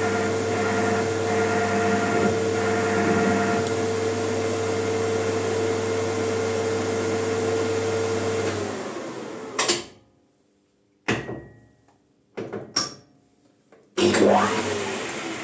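Maximat lathe running steadily with a bicycle disc brake fitted to it, a steady tone over a low motor hum; about eight and a half seconds in it is switched off and winds down quickly. Then come several short clicks and knocks of handling parts.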